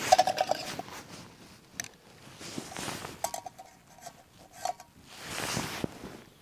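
Camp cookware being handled at a small stove: a short squeaky scrape near the start and a longer one about three seconds in, with rustling in between and toward the end.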